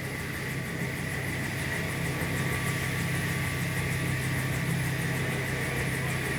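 Bell UH-1 'Huey' helicopter running, a steady turbine whine over a rapid, even rotor beat. It grows louder over the first couple of seconds and eases off near the end.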